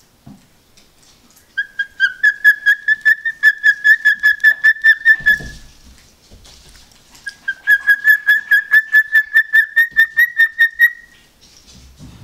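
Male cockatiel whistling: two runs of quick, evenly repeated notes on one high, steady pitch, about six notes a second, each run lasting a few seconds with a short break between them.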